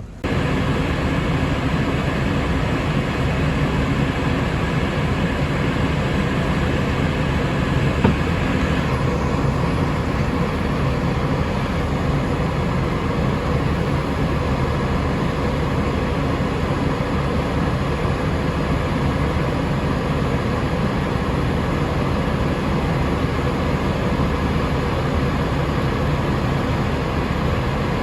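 Tractor engine running steadily under load, heard from inside the cab while ploughing, a continuous drone with no change in pitch.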